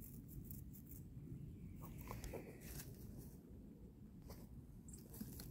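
Hens scratching and pecking in dry leaves and dirt: faint rustles and a few light ticks over a low steady rumble.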